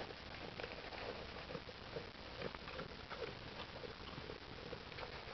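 Alpaca eating feed pellets from a plastic bowl: a steady run of irregular crunches and clicks as it chews and noses through the pellets.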